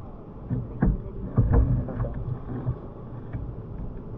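Water sloshing and splashing around a kayak, with uneven knocks and thuds, loudest about a second and a half in.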